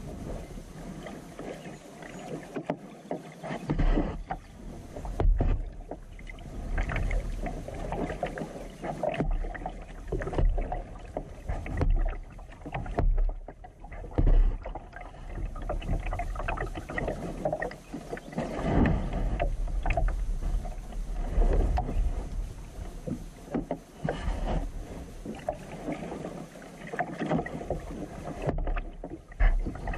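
Kayak paddle strokes in calm water: irregular dips and splashes every second or two, over a low rumble.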